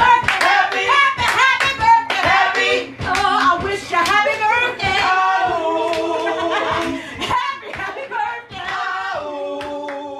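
Voices singing while hands clap along, about two claps a second, with long held notes near the end as it fades.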